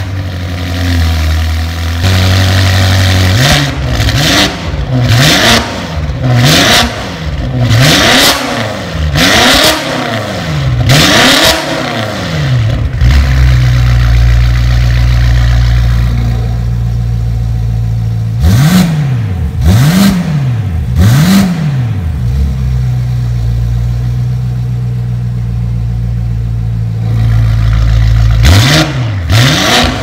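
BMW X5 M (F85) twin-turbo V8 through a Fi Exhaust valved catback with catless downpipes, at a high idle just after starting. It is then revved in quick blips, about seven in a row and later three more, with steady idling between, and revving resumes near the end.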